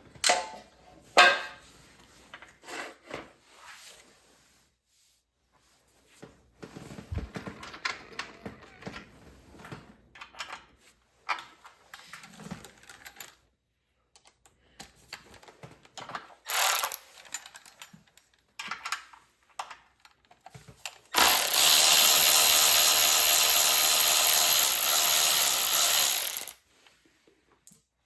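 Hand tools clicking and clattering on small-engine parts, then a handheld power drill runs steadily for about five seconds near the end.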